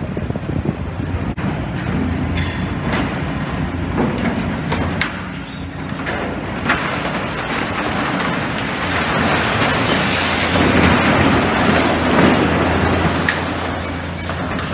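Demolition excavator's diesel engine running steadily while it breaks up a building, with scattered sharp clanks and knocks of metal and concrete and, a little past the middle, a louder stretch of crunching that lasts about three seconds.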